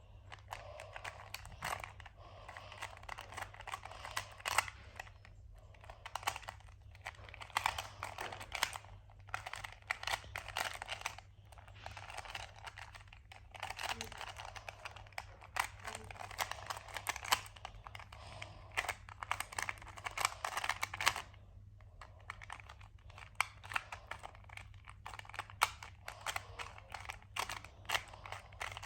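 Plastic 2x2 Rubik's Cube being turned quickly by hand: a rapid run of clicks and clatter as its layers rotate, broken by a few brief pauses.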